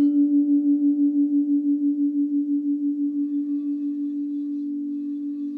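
Frosted quartz crystal singing bowls ringing: one low, steady tone with a fast, even wavering pulse that slowly fades. About three seconds in, a second, higher-pitched bowl joins it.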